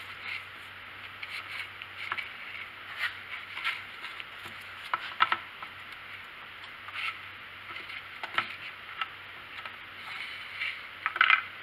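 Metal needle-nose pliers clicking and scraping inside the plastic fuel tank of a Stihl 290 chainsaw while fishing for the fuel filter: irregular small taps and scrapes, with a quick cluster near the end.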